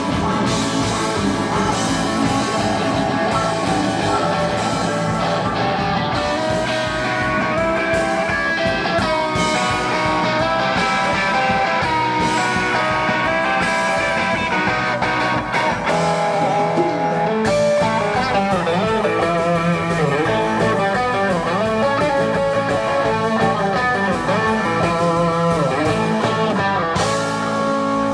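Rock band playing live and amplified: electric guitar to the fore over bass guitar and a Nord Electro 3 keyboard, in an instrumental passage with wavering, bending guitar notes in the second half.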